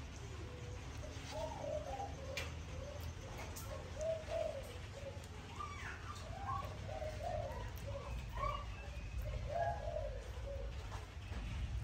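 Birds calling in the background: short cooing calls that rise and fall, repeated in clusters, over a low steady rumble.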